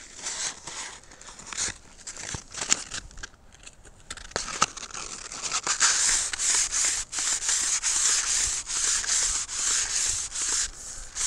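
220-grit sandpaper wrapped around a Japanese arrow cane dart shaft, first crinkling as it is handled, then from about five seconds in rubbed back and forth along the cane in a steady, hissing rasp that comes in strokes.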